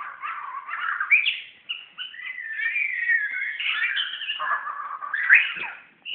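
Oriental magpie-robin singing a nearly unbroken, varied run of whistled and chirping phrases that slide up and down in pitch, with two louder notes, about a second in and near the end. It sings at its own reflection in a mirror as at a rival bird.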